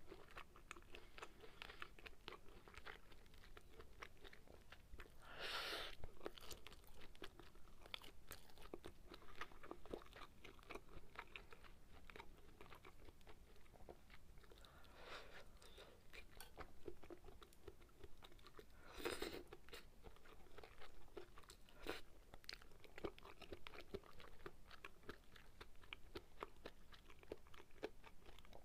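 Close-miked chewing of sukiyaki beef and tofu, with many small wet mouth clicks. A few louder, brief noises stand out, about six seconds in and again around nineteen seconds.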